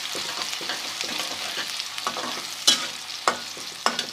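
Chopped onion sizzling as it fries in hot ghee while being stirred, with four sharp knocks against the pan in the second half.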